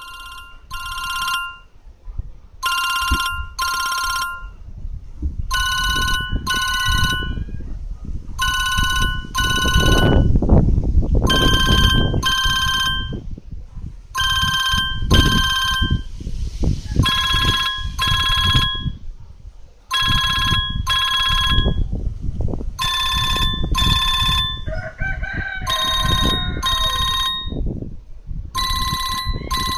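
Siemens M65 mobile phone playing a built-in electronic ringtone through its loudspeaker: a double ring of steady beeping tones, repeated about every three seconds. Wind buffets the microphone, surging now and then.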